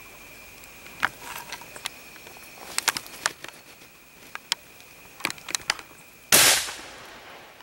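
A single loud gunshot from a hunter's long gun about six seconds in, dying away over about half a second. Before it come scattered sharp clicks, and a steady high insect drone runs underneath.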